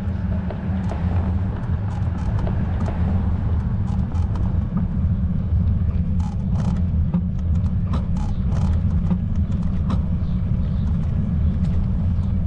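Steady low rumble of wind buffeting the microphone of a camera carried on a moving bicycle, with scattered faint clicks and taps.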